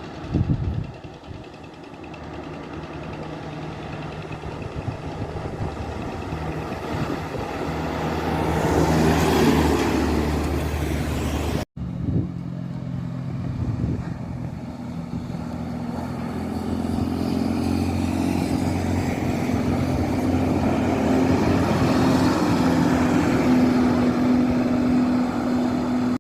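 Heavy road vehicles passing. An engine comes closer and goes by with a rush of noise about nine seconds in. After an abrupt break, another engine's steady hum grows louder towards the end.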